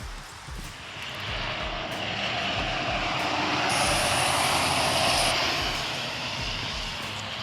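A passing vehicle's rushing engine noise, swelling over a few seconds to a peak about midway and then fading away.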